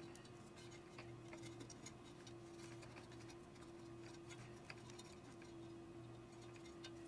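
Faint, irregular small clicks and crackles of dried old surround glue being picked off a speaker's metal frame by fingers, over a steady low hum.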